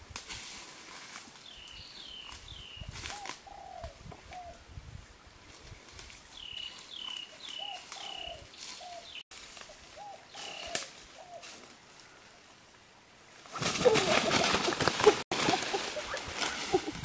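A bird calling in short series of three or four falling notes, over soft rustling in dry leaf litter. Near the end a sudden, loud thrashing rustle of leafy undergrowth as someone lunges through the plants.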